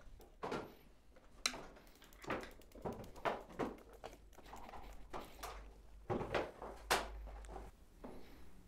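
A hex key working a bolt on a carbon road-bike frame, with a string of irregular clicks, knocks and small rattles as the tool is fitted and turned.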